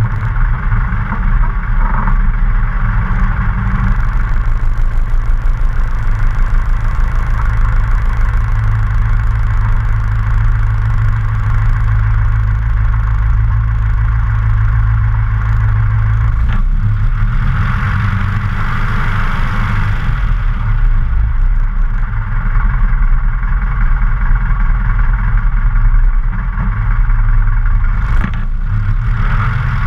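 Luscombe light aircraft's piston engine and propeller idling at low rpm, a steady low drone whose pitch shifts slightly about halfway through.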